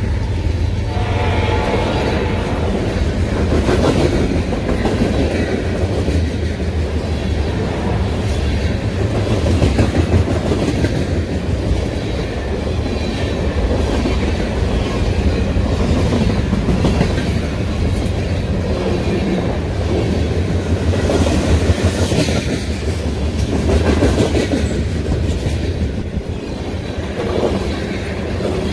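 Freight train cars (tank cars, boxcars and a steel coil car) rolling past: a steady, loud rumble of steel wheels on rail, with repeated clicks and clatter as the wheels cross rail joints.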